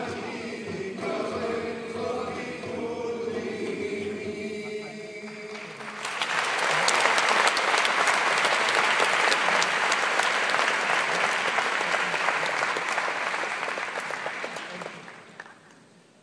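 Men's vocal ensemble singing a sacred Arabic chant, which ends about five and a half seconds in. Then audience applause breaks out suddenly, goes on for several seconds and fades away near the end.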